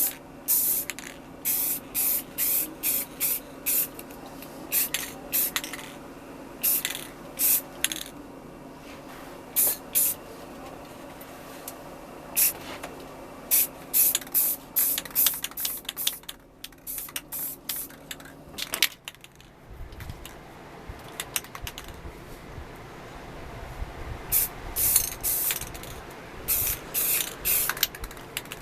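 Aerosol spray can giving many short bursts of spray, quick hisses with brief gaps between them. Underneath runs a steady low hum that stops about two-thirds of the way through.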